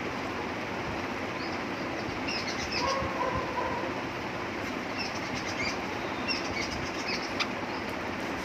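Small birds chirping now and then over a steady background hiss, with soft sounds of fingers mixing rice and curry on a plate and a few light clicks near the end.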